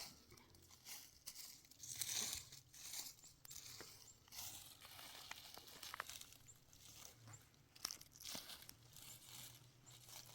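Faint, irregular crunching and rustling, broken by scattered small clicks.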